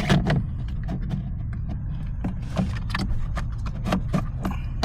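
Irregular plastic clicks and knocks as a replacement HVAC blower motor is handled and twisted into its housing under the dash. A steady low rumble runs beneath them.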